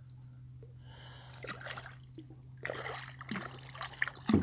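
Water splashing as a hooked channel catfish thrashes at the surface on a limb line beside the kayak, starting softly and getting busier and louder about halfway through, with a loud thump near the end.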